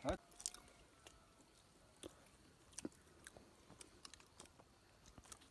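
Faint, irregular crunching and clicking of someone chewing food close to the microphone.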